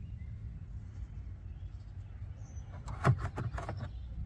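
A quick run of several sharp plastic clicks and knocks about three seconds in, as a Kia EV6 cargo-area trim piece is pushed back into place, over a low steady rumble.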